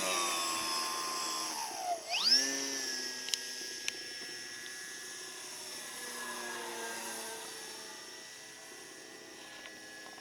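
Electric RC model airplane's motor and propeller whining. It is throttled back about two seconds in, then quickly up again, and holds a steady high pitch while fading as the plane flies away.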